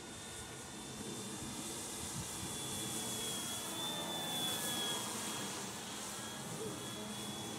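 Electric radio-controlled model biplane flying past: the steady high whine of its electric motor and propeller grows louder toward the middle, then eases off with a slight drop in pitch.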